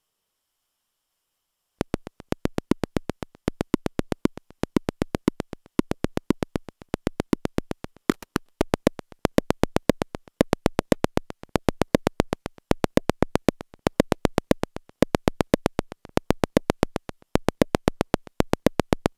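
Make Noise modular synthesizer playing a trainlet patch: the XPO oscillator's sub output as a rapid stream of sharp clicks through high-pass filters, starting about two seconds in. The clicks come in swelling, repeating bursts, shaped by a cycling Maths envelope.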